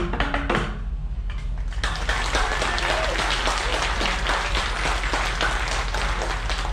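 The last few pitched strikes of a piece played on tuned bamboo tubes ring out and stop within the first second. After a short lull, audience applause starts about two seconds in and continues steadily.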